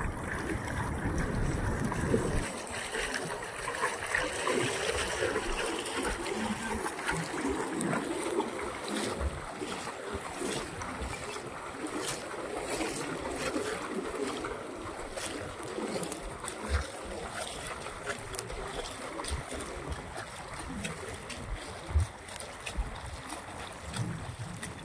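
Shallow water splashing around a man's legs as he wades, dragging a cast net full of fish through it: irregular splashes over a steady wash of water noise.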